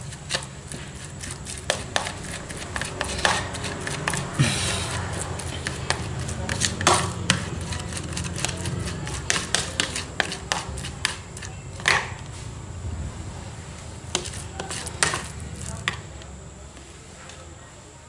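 A metal spoon tapping and scraping in a plastic bowl, mashing raw carp flesh, with irregular sharp clicks, a few louder than the rest.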